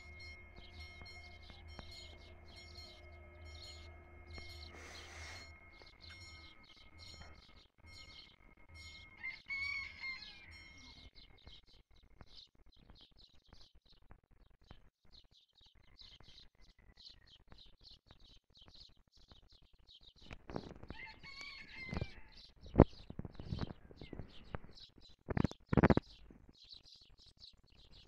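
Small birds chirping over and over, with a rooster crowing twice, about ten seconds apart. A faint steady tone sounds for the first ten seconds or so, and a few sharp knocks near the end are the loudest sounds.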